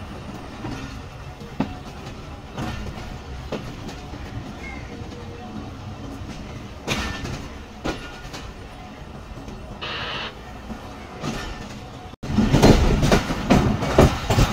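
Awam Express passenger train running, heard from on board: a steady rumble with scattered clicks of the wheels on the track. About twelve seconds in, the sound cuts abruptly to much louder rattling and rushing.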